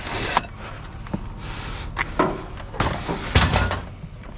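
Scrap metal pieces being handled and dropped: scattered knocks and clatters, with a heavier thump about three and a half seconds in.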